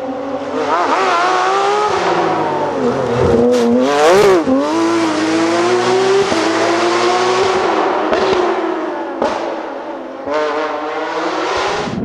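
Porsche 911 rally car's flat-six engine at high revs, climbing through gearshifts and passing close, its pitch peaking about four seconds in and then dropping as it goes away. Near the end a second rally car starts up sharply and accelerates.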